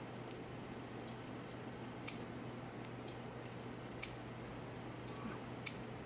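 Three short, sharp clicks, about two seconds apart, as a finger taps the touchscreen of a Sony Xperia Go smartphone. A faint steady hum runs underneath.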